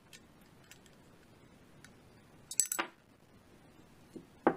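Small metal-on-metal clicks as the bolt guide pin is pulled from a Desert Eagle Mark XIX slide with the combination tool: a quick cluster of clicks about two and a half seconds in, then a faint tick and one sharper click near the end.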